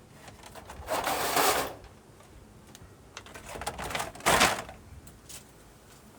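Steel tape measure rattling and clicking as its blade is worked out and along, in two loud bursts, the first about a second in and a shorter one about four seconds in, with small clicks between.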